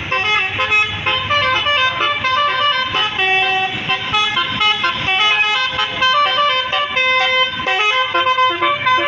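12-note Basuri telolet bus horn playing a fast tune of stepped notes that change every fraction of a second, over a low rumble.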